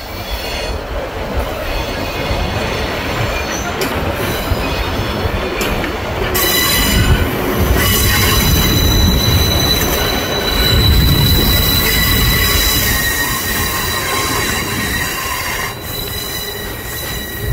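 Passenger train cars rolling over the rails on a curve, wheels rumbling, with a steady high-pitched wheel squeal setting in about six seconds in and holding, typical of wheel flanges grinding against the rail on a bend.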